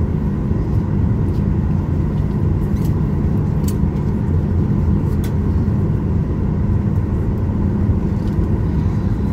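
Steady low cabin rumble inside a parked Boeing 737-800, with a faint steady whine and a few faint clicks over it.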